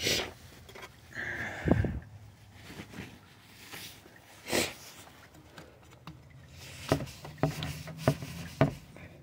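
Quiet handling noises with a few sharp clicks as spark plug wire boots are pushed onto the plugs of a Dodge van's engine. A couple of short sniffs come through, one right at the start and one about four and a half seconds in.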